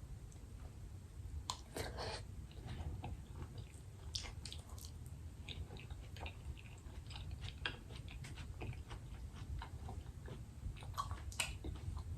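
A person chewing a mouthful of jerk tofu nuggets with rice and avocado close to the microphone. Soft, irregular mouth clicks and smacks run over a low steady hum.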